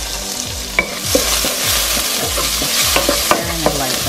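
Shrimp, onion, garlic and ginger sizzling in hot oil in a frying pan, with a wooden spoon scraping and clicking against the pan as the food is stirred; the clicks come more often in the second half.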